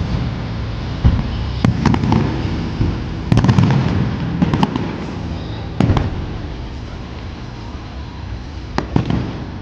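Aerial fireworks display: irregular shell bursts and sharp cracks over a continuous rumbling crackle, busiest in the first half and thinning out toward the end.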